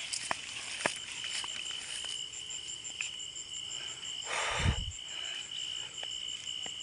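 Night insects trilling steadily: one high, pulsing trill and a fainter, higher, evenly ticking call above it. A few sharp snaps of footsteps come in the first second, and a louder rustle with a low thump comes about four and a half seconds in as someone pushes through the leafy plants.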